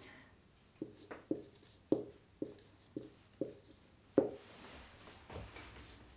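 Whiteboard marker writing on a whiteboard: a series of short taps and strokes, about eight in four seconds, the loudest about four seconds in.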